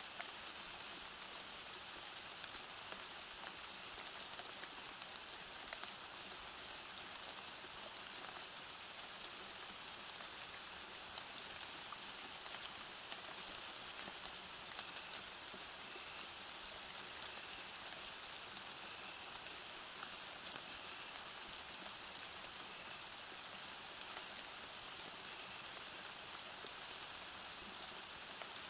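Steady rain falling: an even hiss scattered with many small drop ticks.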